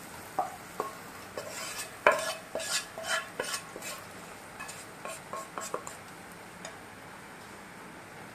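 Wooden spatula scraping fried paneer cubes out of a non-stick frying pan onto a steel plate, with the pan and spatula knocking against the plate: a run of irregular scrapes and clicks that thins out after about six seconds.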